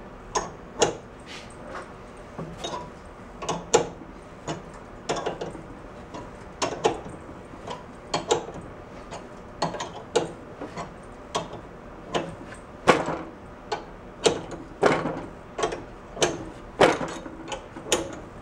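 Ratchet wrench clicking in short, uneven strokes as it turns the forcing screw of a gear puller, working a rust-seized, heated pulley off a snowblower engine's shaft. Dozens of sharp clicks and knocks, the loudest a little past the middle.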